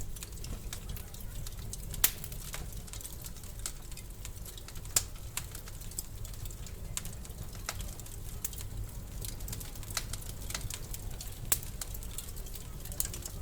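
Wood fire crackling in a fireplace: a steady run of small snaps and pops over a low rumble, with a few louder pops scattered through, the loudest about two seconds in.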